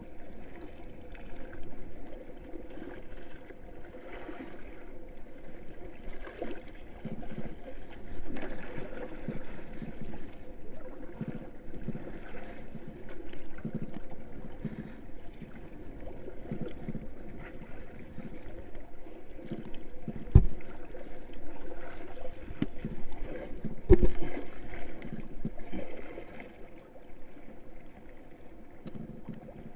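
Small waves lapping and sloshing against a large floating board at sea, rising and falling unevenly. Two sharp knocks stand out in the latter part, about three and a half seconds apart.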